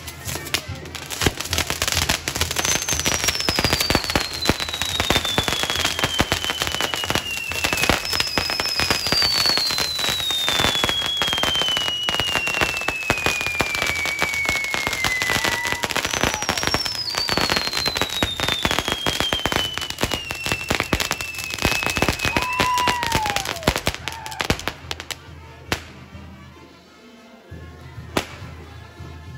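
Fireworks crackling and popping densely, with three long whistles that each slowly fall in pitch over several seconds. The crackling dies down about four fifths of the way through.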